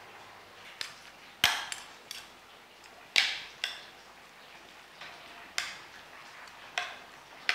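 Metal spoon clinking and scraping against a ceramic plate while a diced vegetable salad is tossed in mayonnaise dressing: about seven sharp clinks, spread irregularly a second or so apart.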